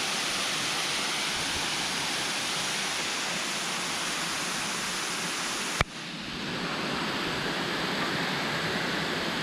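Waterfall pouring into its pool, a steady rush of falling water. About six seconds in there is one sharp click, after which the rush drops away briefly and swells back.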